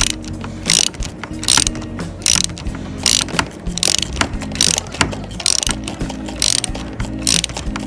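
Socket ratchet wrench worked back and forth on an engine bolt, a short burst of pawl clicks on each return stroke, about one stroke a second. It is turning the bolts while the alternator is adjusted to tension the drive belt.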